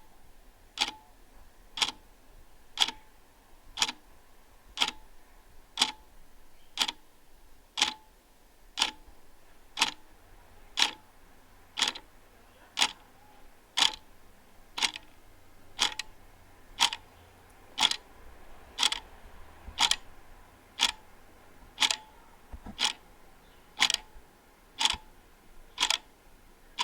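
Wall clock ticking steadily, one sharp tick a second.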